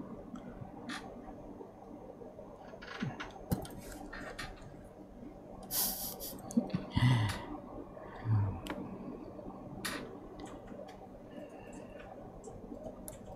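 Small clicks and taps of hand tools and parts handled on an electronics repair bench during soldering, over a steady low hum. A short hiss about six seconds in and two dull low thumps a little after it.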